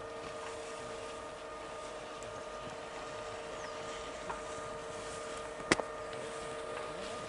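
Steady mechanical hum made of a few constant tones, with one sharp click about five and a half seconds in.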